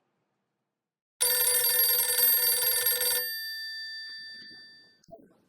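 A telephone's bell rings once for about two seconds, then its ring fades away. A faint knock follows near the end.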